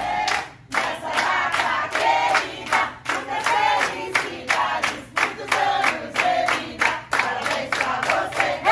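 A group of women singing and chanting together in loud unison to the birthday girl, with steady clapping in time.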